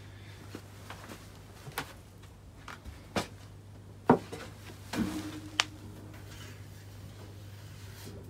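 Several light, sharp clicks and knocks, the loudest about four seconds in, over a steady low hum.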